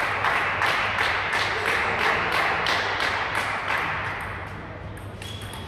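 Small crowd of spectators applauding in a large hall after a table tennis rally; the clapping fades away over about four seconds.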